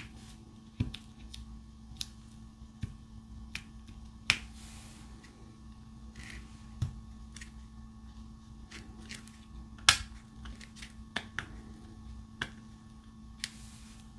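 Irregular light clicks and taps of a diamond painting drill pen picking up resin drills and pressing them onto the canvas, roughly one or two a second, with a few brief soft rustles of drills shifting in the tray.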